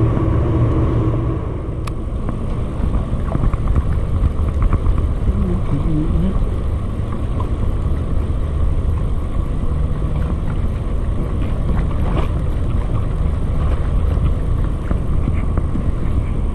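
A steady low rumble with no speech, broken by two sharp clicks, about two seconds in and again about twelve seconds in.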